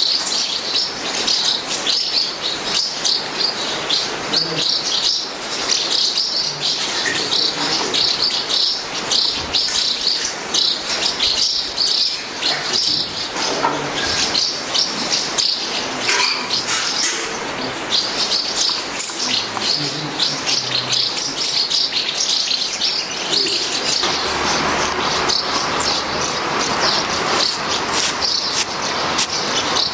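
Birds chirping busily and continuously in rapid high calls, with scattered scrapes and clinks of hand tools. From about two-thirds of the way through, a rustling hiss comes in as a plastic sheet is handled.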